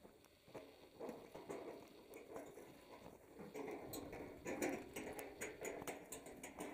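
Irregular clicks and knocks of rocks clattering against each other and footsteps on loose rubble, busier in the second half.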